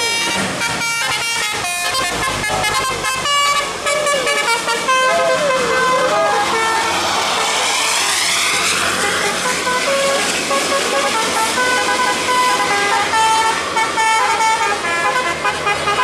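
Bus "telolet" multi-tone musical horns playing a tune of stepped, held notes throughout. Around the middle a coach passes close by, and its engine and road noise swell and fade.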